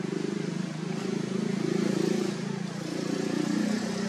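An engine running steadily, with a low hum that grows louder over the first couple of seconds and then swells and eases a little.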